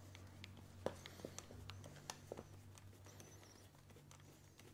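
Faint scattered clicks and light scrapes of metal screws and a 4 mm hex driver as the rim screws are screwed back into an electric scooter's hub-motor wheel, over a low steady hum.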